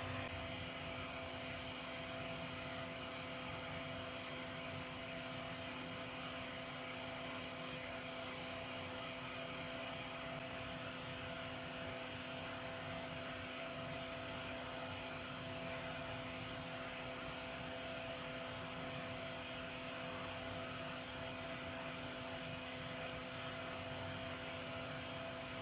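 Solder fume extractor fan running with a steady hum.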